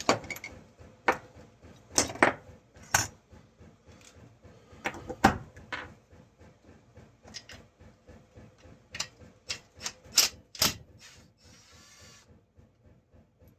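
Hand tools clicking and knocking against metal on the chainsaw while the spark plug is being removed: a string of sharp, irregular clicks, with a short rasp near the end.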